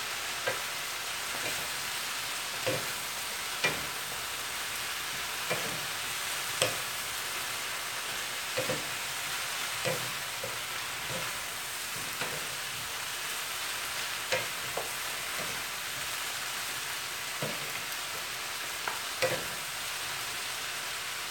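Stir-fry vegetables sizzling in a hot frying pan as two wooden utensils stir and toss them, with irregular sharp knocks of wood against the pan about once a second over the steady sizzle.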